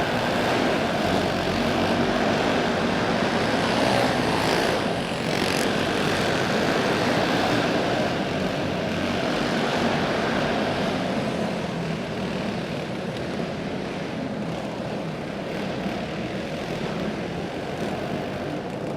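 A field of racing kart engines running flat out on the restart, with one kart passing close about five seconds in and the pack fading a little toward the end.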